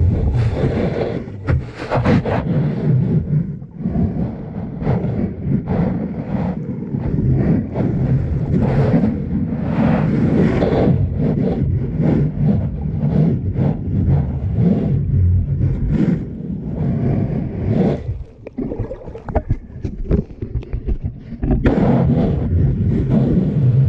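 Shallow seawater surging and churning over a sandy bottom, heard close to the camera as an irregular rumbling wash with crackling hiss. It eases off briefly about eighteen seconds in, then swells back.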